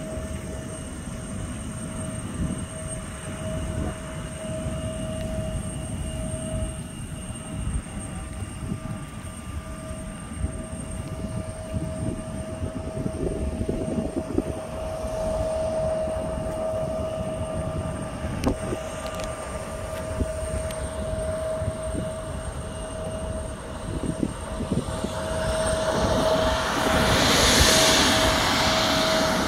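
Embraer 175 regional jet's turbofan engines running at taxi power: a steady whine over a low rumble, growing louder in the last few seconds as the jet comes closer.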